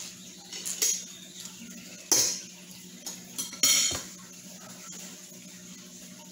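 Forks clinking and scraping against plates and glass bowls: a few separate clinks, the loudest about two seconds in and just before four seconds.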